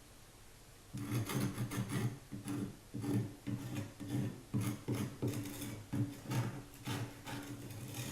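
Loose plaster being scraped off a plasterboard wall with a blade: repeated rasping strokes, about two a second, starting about a second in.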